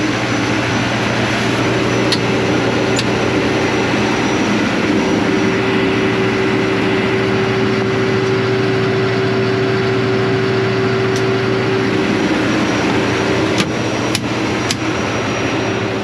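John Deere combine running: a loud, steady mechanical drone with a constant hum, and a few faint sharp ticks.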